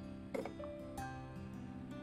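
Soft instrumental background music with steady held notes that change every half second or so, and a short knock about a third of a second in.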